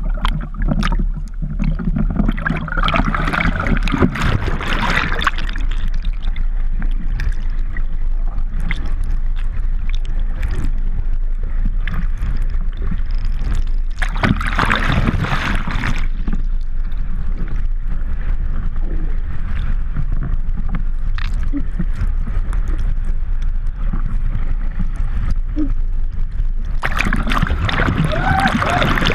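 Water rushing past a GoPro in its waterproof housing as a subwing is towed through the lake: a steady muffled underwater rumble, broken three times by bursts of splashing and gurgling, a few seconds in, around the middle and near the end, as the camera churns through the surface.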